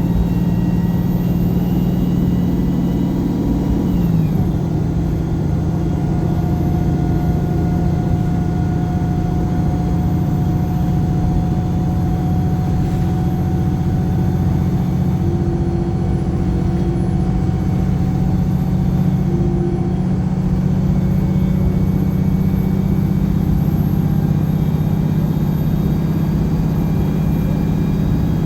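Wright Pulsar single-deck bus heard from on board: its diesel engine runs at a steady pitch, drops in note once about four seconds in, then holds steady under way with road rumble.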